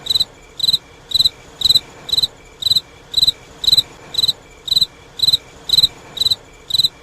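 Cricket chirping at a steady pace of about two chirps a second, each chirp a short high trill, over a faint steady background hiss.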